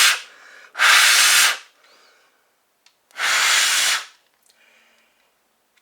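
A person blowing hard into a household smoke detector to clear cigarette smoke out of its chamber. Short, forceful puffs of breath, each under a second: one about a second in and another about three seconds in.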